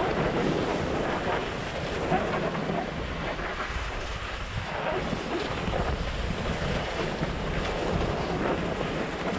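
Wind buffeting a GoPro's microphone during a fast downhill run, over a steady hiss and scrape of edges sliding on packed, groomed snow.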